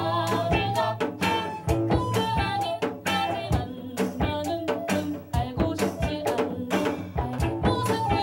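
A Korean folk-fusion band playing a song with a lively rhythm: regular drum kit strokes, bass and guitar under a woman singing lead.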